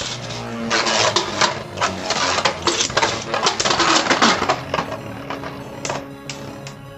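Rapid, dense clattering of hard plastic Beyblade spinning-top parts, clicking and rattling against each other and the plastic stadium, thinning out to a few separate clicks near the end.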